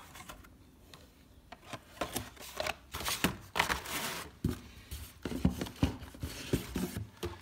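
Hot Wheels blister-pack cards, card backing with plastic bubbles, being handled and set down: irregular rustling, scraping and light taps, busier after the first second or so.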